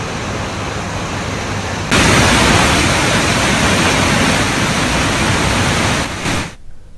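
Floodwater rushing through open dam spillway gates: a steady, even rush that jumps louder about two seconds in and falls away near the end.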